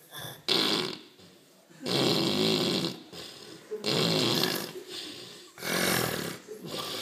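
A man snoring loudly: four long, rasping snores in a steady breathing rhythm, one about every one and a half to two seconds.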